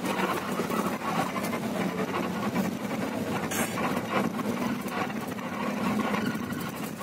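Coach engine running with road noise, heard inside the cabin: a steady low hum with a constant rush and light, frequent rattles and clicks.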